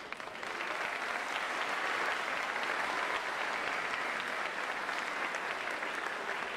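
Audience applauding, swelling about half a second in and easing off near the end.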